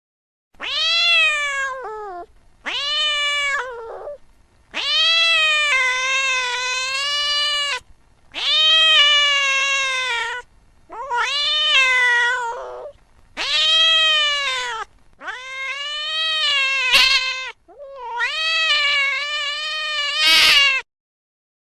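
Domestic cat meowing: a run of about eight long, drawn-out meows, each one to three seconds, wavering in pitch, with short pauses between them.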